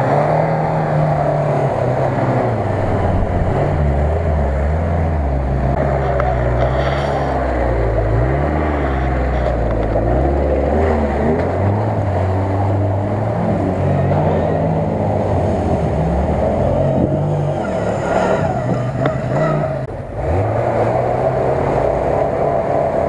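Lada Niva engine revving under heavy load, its pitch repeatedly rising and falling as the 4x4 pushes through deep water and mud, with a steady wash of splashing and churning.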